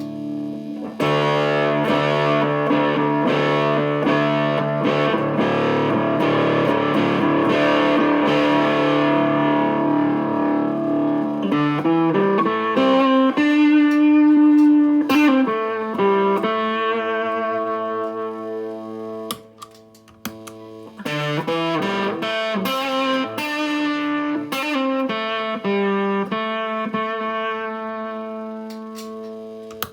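Electric guitar played through an Astrotone-style silicon fuzz pedal built with 2N3566 transistors. A fuzzed chord rings out for about ten seconds, then the guitar plays single-note riffs. After a brief gap there are more riffs and chords, fading near the end.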